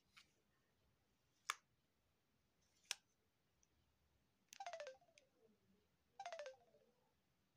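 Samsung SGH-Z400 slider phone: two sharp clicks as it is handled and slid open, then two short electronic beeps, each falling in pitch, about a second and a half apart, as its keys are pressed.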